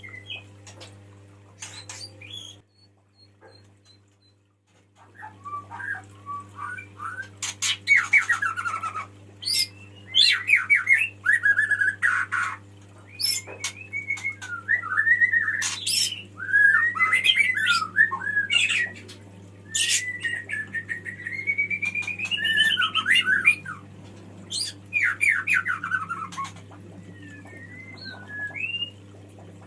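Male white-rumped shama (murai batu) singing, in a long run of varied whistled phrases mixed with sharp chattering and squawking notes. There is a short pause a few seconds in before the song picks up. A steady low electrical hum runs underneath.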